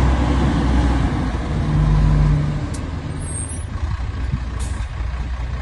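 Shacman dump truck's diesel engine pulling away and driving past close by. The engine is loud at first with a steady low drone, then eases off a little past the middle.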